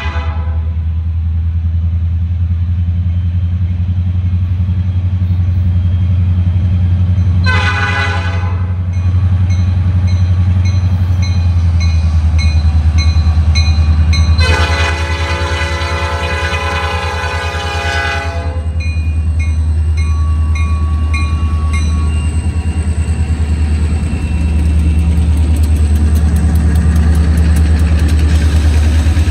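Diesel freight locomotives, an EMD SD40-2 leading a GP15-1, rumbling steadily past while the lead unit's air horn sounds: the end of one blast right at the start, a short blast about seven seconds in, and a long blast of about four seconds near the middle, the closing short-and-long of a grade-crossing signal. Faint regular high dings run through the middle stretch.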